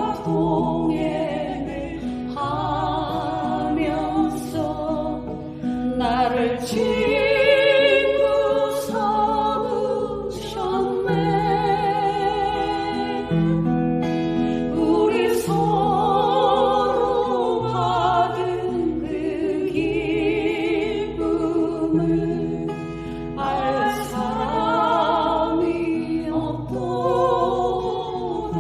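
A Christian praise song sung with vibrato over instrumental accompaniment with sustained bass notes.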